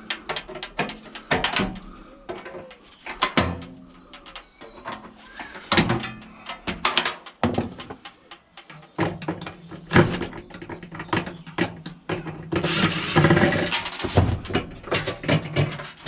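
Irregular knocks and clatters of scrap metal being handled and worked on. In the second half a low steady hum runs underneath, with a rushing noise about two thirds of the way through.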